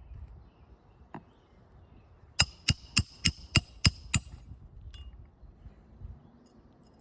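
Roofing hammer driving a nail under a shingle with a roof snake: a single blow, then a quick run of seven blows, about three a second, each with a short metallic ring.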